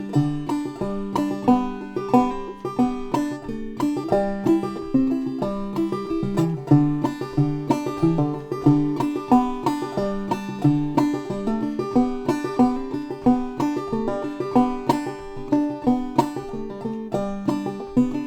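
Five-string banjo played clawhammer style in open G tuning: a steady, driving run of plucked notes and brushed strums working through the tune with a few added embellishments.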